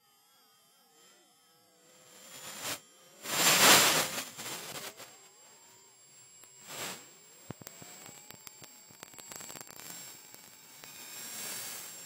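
Infrasound recorded aboard a stratospheric high-altitude balloon, sped up 1000 times into the audible range. Faint wavering tones give way to a loud noisy swell about three seconds in and a shorter one near seven seconds. Scattered clicks and a thin steady high tone follow, and the noise rises again near the end.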